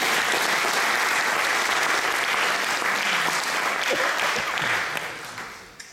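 An audience applauding, dying away near the end.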